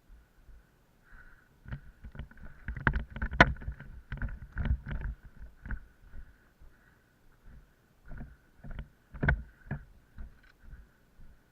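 Irregular knocks and crunching thumps, in a dense cluster for several seconds and then a shorter one, over a faint steady high whine.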